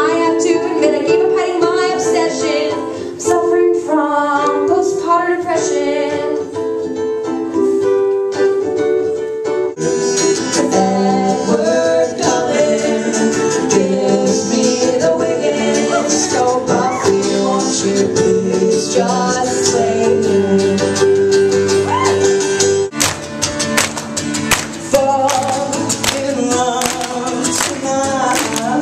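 Live band music: a woman singing over strummed guitar. About ten seconds in, low bass notes and more instruments join, and about 23 seconds in the music turns abruptly to dense, sharp beats.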